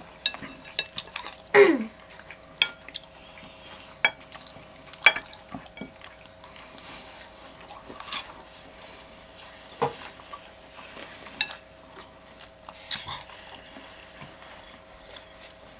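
Chopsticks clicking and tapping against dishes at irregular intervals, with quiet chewing, and a short falling squeak about a second and a half in. A faint steady hum runs underneath.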